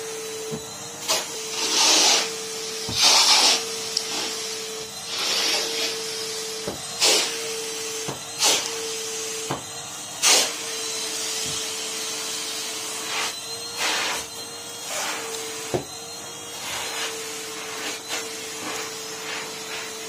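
Numatic Henry vacuum cleaner running with a steady motor whine, broken by repeated short rushes of louder hiss and a few light knocks as the hose sucks up bits of tissue from the carpet.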